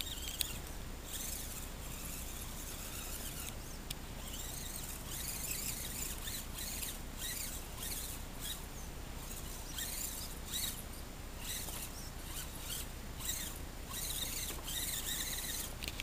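Axial SCX10 RC crawler truck's electric motor and gears whining in short, uneven spurts as it is throttled over dirt and leaf litter, with scratchy crunching from the tyres and chassis on twigs and leaves.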